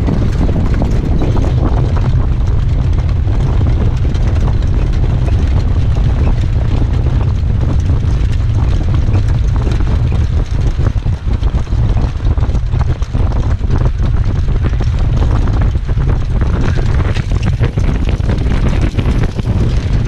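Strong wind buffeting a microphone mounted on a harness-racing sulky moving at speed: a loud, steady low rumble, with rapid knocks from the horse's hooves and the cart on the dirt track underneath.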